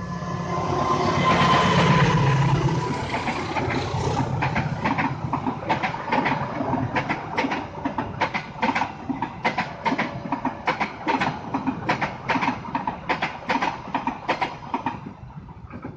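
Passenger train behind a CC206 diesel locomotive passing close by. It is loudest about two seconds in, then comes a quick, even clickety-clack as the coaches' wheels cross the rail joints, dying away near the end.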